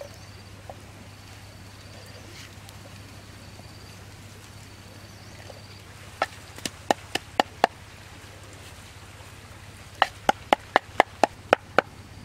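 Wooden pestle pounding chili and salt in a mortar: two runs of sharp knocks, about six strikes past the middle and about eight more near the end, roughly four a second.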